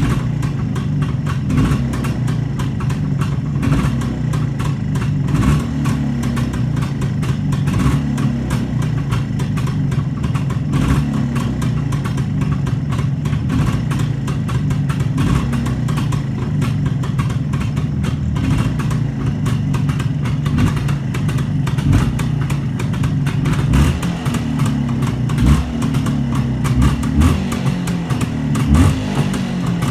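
Freshly overhauled Jawa 350 motorcycle's two-stroke twin engine running steadily at a low speed, with small uneven blips of throttle in the last several seconds.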